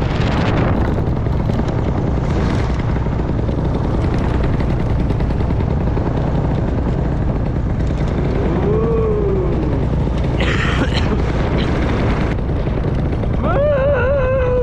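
Steady wind rush and buffeting in flight under a paramotor, with the engine running underneath. A short rising-and-falling voice-like call about eight seconds in and a wavering one near the end.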